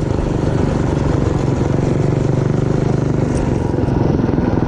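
Mini bike's Predator 212 single-cylinder four-stroke engine running under way at a fairly steady speed, a rapid even firing beat.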